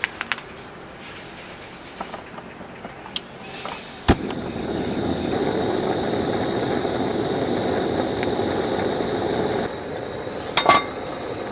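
Clinks and knocks of camp cookware or utensils, with a sharp knock about four seconds in followed by a steady rushing noise that lasts about five seconds and stops abruptly, and two bright clinks near the end.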